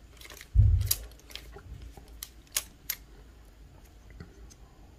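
Small sharp clicks and ticks of a metal-and-plastic phone clamp mount being handled and threaded onto a 1/4-20 camera adapter screw, with one dull thump about half a second in.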